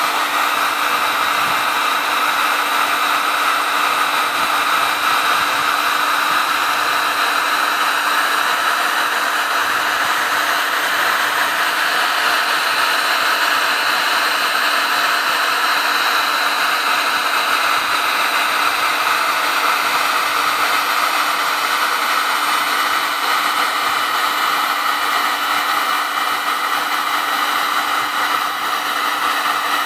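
Electric heat gun running continuously, its fan blowing a steady airy rush with a low steady hum underneath.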